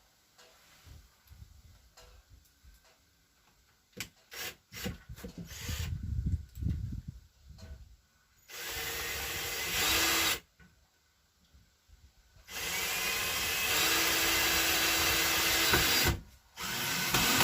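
A few knocks and rattles of handling, then a power drill running in three long bursts, driving screws into wood.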